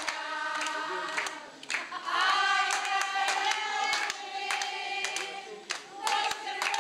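A group of women singing a song together, with hand-clapping in time, about two claps a second.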